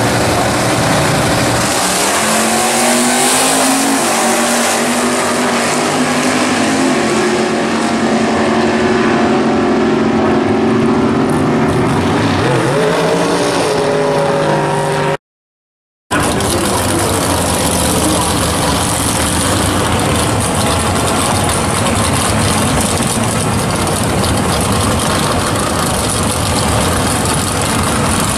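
Drag racing cars launching and accelerating hard down the strip, their engine notes climbing in pitch as they pull away. After a sudden dropout of about a second midway, the loud, steady sound of the next pair of cars' engines running at the start line follows.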